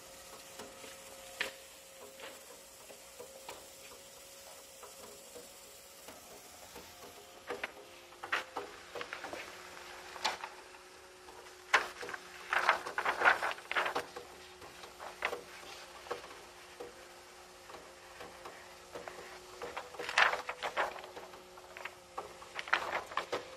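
TCC-EASY 2 roll laminator running after the run button is pressed, its motor driving the rollers with a faint steady hum that drops in pitch about eight seconds in. Laminating film crackles and rustles as the laminated sheet comes out and is handled, loudest in the middle and near the end.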